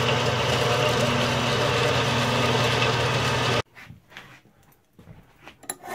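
Metal-cutting bandsaw running steadily as it cuts through an aluminum bar, with a low motor hum under the blade noise. It stops abruptly about three and a half seconds in, leaving only a few faint clicks.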